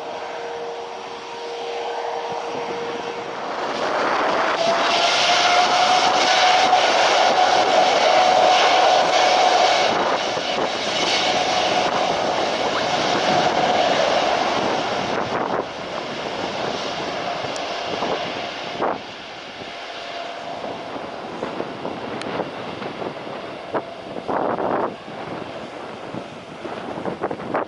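Jet airliner's engines running past at close range: a loud roar with a steady whine that rises at first, is loudest in the first half and then fades. Wind buffets the microphone near the end.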